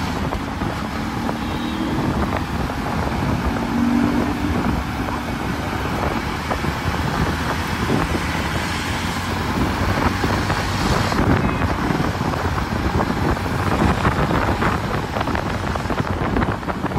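Wind rushing over the microphone of a moving motorcycle, over the steady noise of road traffic.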